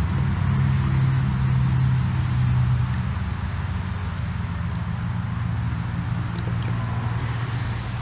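Steady low rumble of nearby road traffic, easing a little about three seconds in, with a thin, steady high-pitched insect drone over it.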